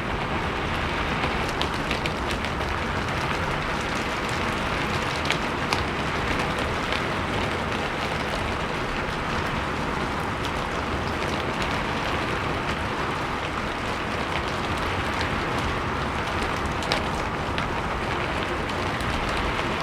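Steady rain falling on a roof: a dense, even hiss with scattered sharper drop hits, a few louder ones standing out now and then.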